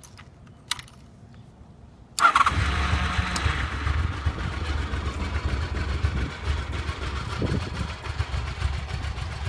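A 1995 Honda VFR750F's V4 engine starting about two seconds in, catching at once and then running steadily. It is the sign that the bike has electrical power again now that its blown 30 A main fuse has been replaced.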